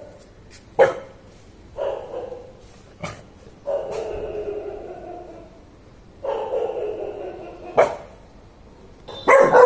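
Rottweiler barking, with a few short sharp barks (about a second in, three seconds in and near eight seconds) between longer drawn-out calls that fall slightly in pitch, and a loud bark starting near the end.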